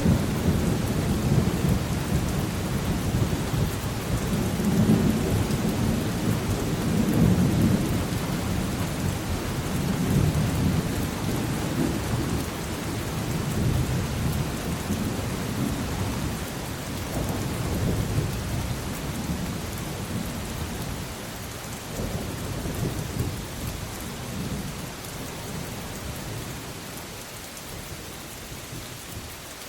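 Rain falling steadily with rolling thunder, the low rumble swelling several times and then dying away over the last several seconds, leaving the rain.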